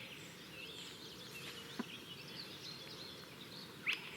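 Small birds chirping and twittering over a steady low background hiss, with one short, sharp rising whistle near the end, the call of a spotted crake.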